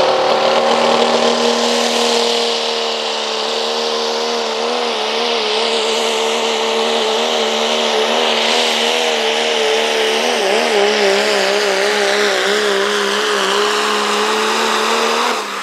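Turbocharged diesel pickup engine held wide open as the truck pulls a sled, a loud steady drone whose pitch starts to waver and bob about four seconds in. Right at the end the level drops suddenly as the engine lets off at the end of the pull.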